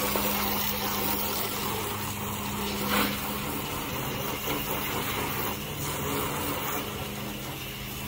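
Garden hose spray nozzle jetting water onto an air-conditioner condenser's metal drain shield: a steady hiss and splatter, with a steady low hum underneath.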